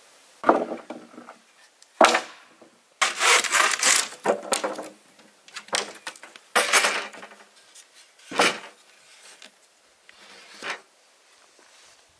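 Handsaw cutting a thin wooden batten in several short spells of strokes, the longest about three seconds in. There are sharper wood knocks and scrapes as the pieces are handled.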